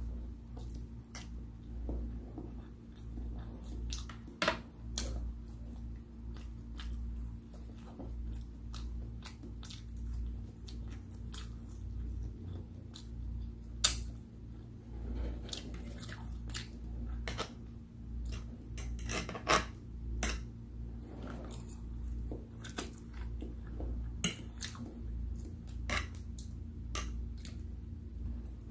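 Close-miked chewing of Indomie pancit canton instant noodles, wet mouth sounds broken by irregular sharp clicks and smacks.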